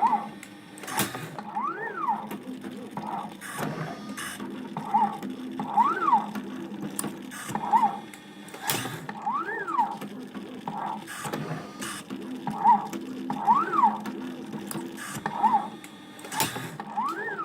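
Desktop CNC wire-bending machine bending steel wire: its stepper motors whine up and then down in pitch with each move, about every one to two seconds, with sharp clicks in between.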